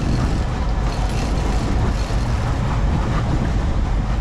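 Steady low rumble of a sportfishing boat running slowly at sea: engine noise and wind, with water washing along the hull.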